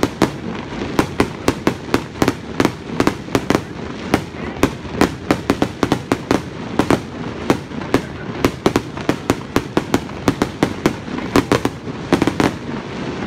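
Fireworks display with aerial shells bursting in a rapid, continuous barrage of sharp bangs, several a second, without a pause.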